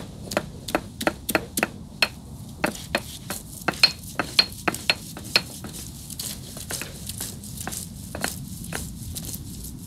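Cooking utensils clinking and knocking against metal cookware, a quick run of sharp, ringing clinks about two or three a second for the first five seconds, then softer and sparser.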